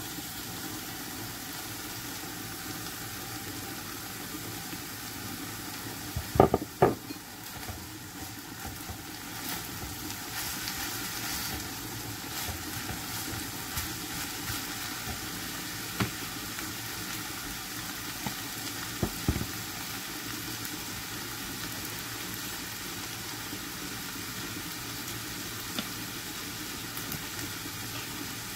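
Minced beef and mixed vegetables sizzling steadily as they fry in a pan, with a few sharp knocks, the two loudest about six to seven seconds in.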